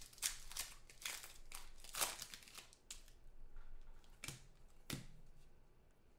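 Football trading cards and foil pack wrappers being handled: irregular crinkling and rustling with a few sharp clicks, the loudest about two seconds in.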